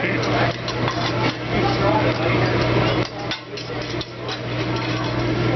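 Metal spatulas clanking and scraping on a hibachi steel griddle in quick, uneven strikes as the chef scrapes the cooking surface clean.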